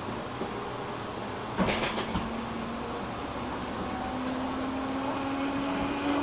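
Interior of a JR 205 series 600 subseries electric train: a sharp clunk with a brief rattle about a second and a half in, then from about four seconds a low traction-motor hum that slowly rises in pitch as the train starts to move off.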